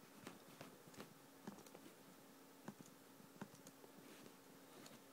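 Near silence with a few faint, irregular clicks from chewing a mouthful of chocolate Cheerios in milk, over a faint steady hum.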